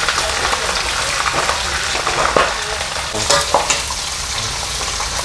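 Catfish sizzling in hot oil in a frying pan: a steady frying hiss with a few sharp pops and crackles.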